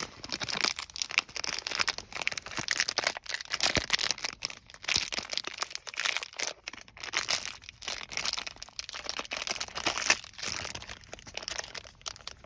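Plastic packaging crinkling and rustling as it is handled: an irregular crackle of many small clicks.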